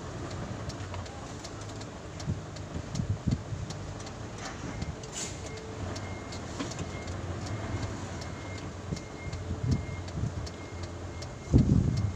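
Truck engine running, heard from inside the cab as a steady low rumble, with faint regular ticking about three times a second. A few low knocks occur, and a louder low thump comes near the end.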